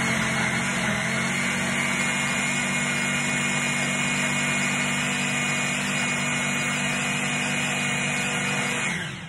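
Bullet-style personal blender running steadily, blending a smoothie of honeydew melon, kale, ginger, berries and banana. The motor winds down and stops near the end.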